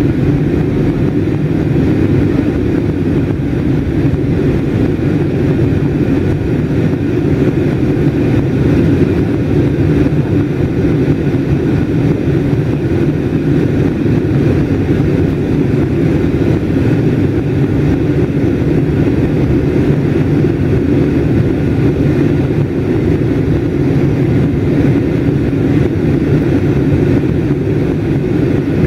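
Steady cabin noise of an Airbus A320 airliner in flight, heard from a window seat: a low, even drone of engines and rushing air. It is loud and unchanging throughout.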